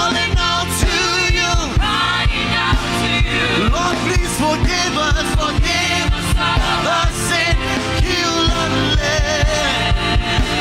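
Live church worship band playing, with a steady drum beat under sustained chords and voices singing over it.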